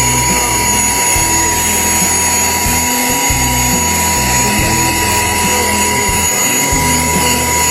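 Small electric vacuum running with a steady high whine, sucking cat hair and dust out of a MacBook Pro's insides.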